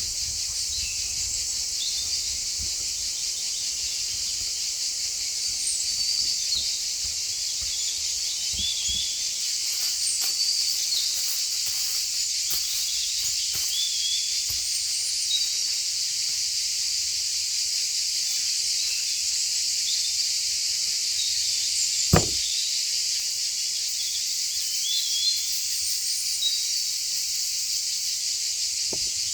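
Steady high-pitched chorus of insects, with many short bird chirps scattered through it. A single sharp knock sounds about three quarters of the way through.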